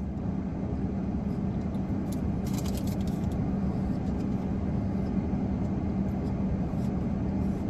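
Steady hum and rush of a running car heard inside the cabin, with a constant low drone. A few faint clicks come about two to three seconds in.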